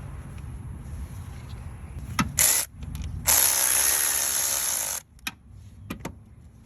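A power tool runs in a short burst, then for nearly two seconds with a slightly wavering pitch, backing out the bolt that holds the drive-belt tensioner. A few sharp metal clicks come before and after it.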